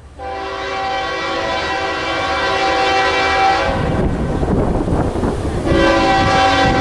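CSX freight locomotive's air horn blowing a chord of several tones in two long blasts, the first about three and a half seconds and the second starting about two seconds later, with the low rumble of the approaching diesel train under and between them.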